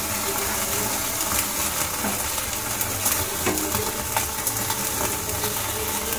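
Masala-coated pomfret searing over a gas flame: a steady sizzling hiss broken by irregular sharp crackles of the marinade charring.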